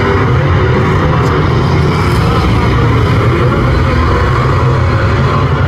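A pack of speedway saloon cars racing through a turn on a dirt oval, many engines running together in a loud, steady drone.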